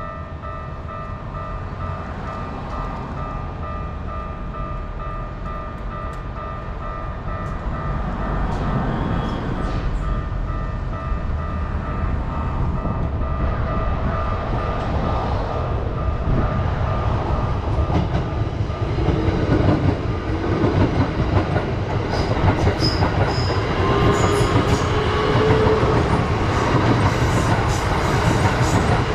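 A Japanese level-crossing alarm rings with pulsing electronic tones while a train approaches. About eight seconds in, the train's rumble and wheel clatter build and keep growing louder as it passes the crossing, with sustained high tones sounding over it in the last third.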